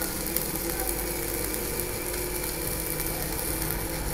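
Stick welding arc burning steadily with an even crackling hiss as a 2.5 mm electrode runs on an inverter welder set to about 170 amps, the setting at which this machine finally melts in properly.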